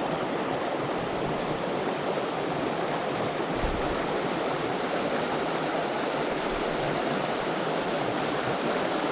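Small mountain trout stream's water rushing steadily.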